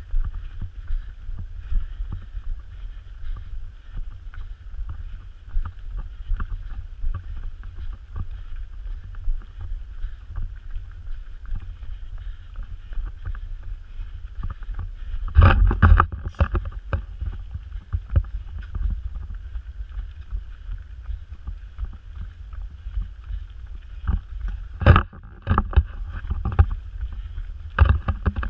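Running noise on a runner's body-worn action camera: a steady low rumble of wind and mount jostle with the thud of footfalls, and a few louder knocks about halfway through and again near the end.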